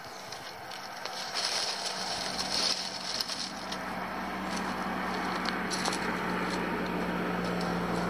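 An approaching car's engine and tyre noise growing steadily louder, with dry leaves and twigs crackling as they are handled, mostly about one to three seconds in.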